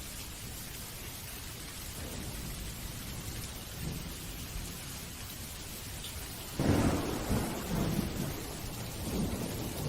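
Steady rain, then a sudden thunderclap about two-thirds of the way in that rolls on as a rumble.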